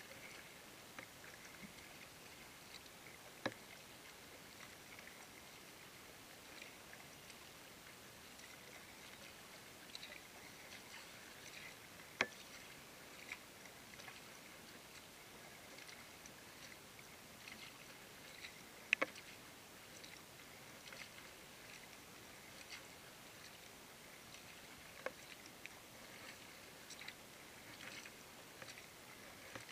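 Small waves lapping and ticking against a plastic kayak hull drifting on calm water, with a few sharper knocks now and then over a faint hiss.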